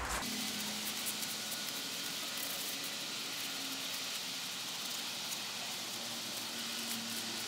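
A steady, even high hiss.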